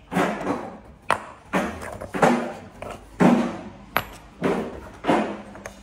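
Large rough stones being set down by hand and knocking against neighbouring stones, about nine sharp knocks at irregular intervals of half a second to a second.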